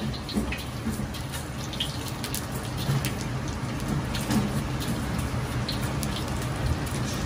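Sichuan peppercorns crackling and sizzling in hot oil in a carbon-steel wok, with scattered small pops over the steady low rush of the wok burner.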